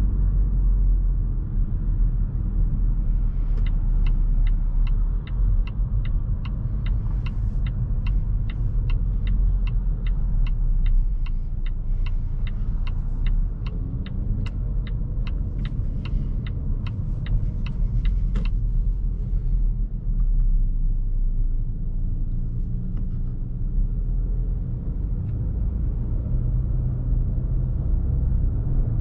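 Cabin sound of a 2020 Volvo V60 T5 Cross Country with a 2.0-litre turbocharged four-cylinder, on the move: a steady low rumble of engine and tyres. A few seconds in, the turn-signal indicator starts ticking evenly, about two to three ticks a second, through a turn at a junction. It stops about fifteen seconds later.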